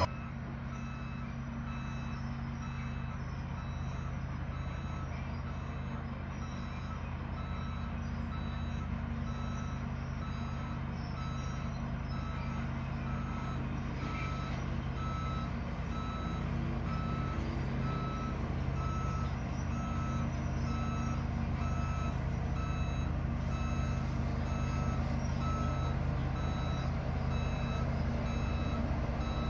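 Diesel engine of a road roller running steadily, with a reversing alarm beeping about once a second. The machine gets slowly louder toward the end.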